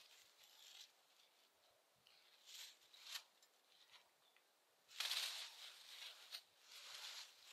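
Footsteps and brush rustling in dry fallen leaves, faint, in a few short bursts, the loudest about five seconds in.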